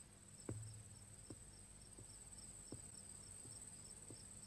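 Crickets chirping in a steady fast pulse, about four chirps a second, as night ambience. Faint soft taps come at a slow even pace, about one every three-quarters of a second.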